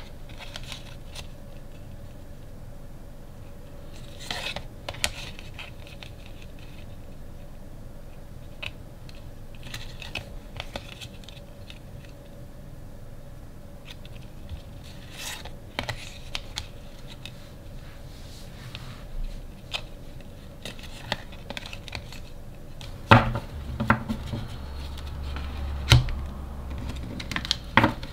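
Stiff cardstock photo cards handled by hand over a wooden table: scattered light clicks and rustles as the stacks are shifted and leafed through, then several louder knocks near the end as the card sets are set down on the tabletop.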